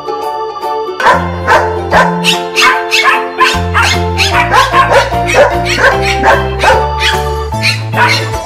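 Upbeat background music with a steady beat, starting about a second in, with a dog barking over it.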